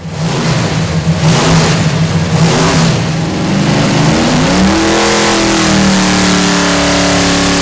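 Ford 427 FE top-oiler V8, stroked to 498 cubic inches and fed by two four-barrel carburettors, running loud on an engine dyno. It runs rough and uneven at first, rises in pitch about four and a half seconds in, then holds a steady higher speed.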